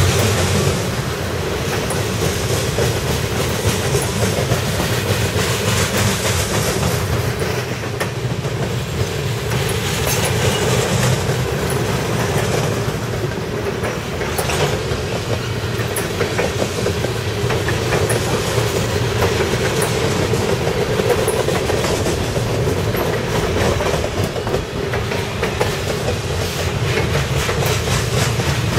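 Cars of a CSX mixed freight train (boxcars, covered hoppers and tank cars) rolling past: a steady noise of steel wheels on rail, with wheels clicking over rail joints.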